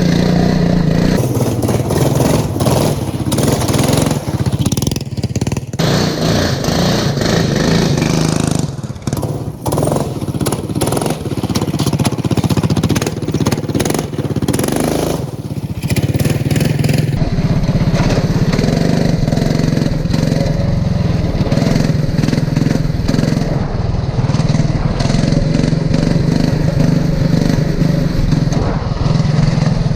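Racing lawn mower's engine running hard as it is ridden. The throttle eases off briefly and picks back up about 8 seconds in and again about 15 seconds in.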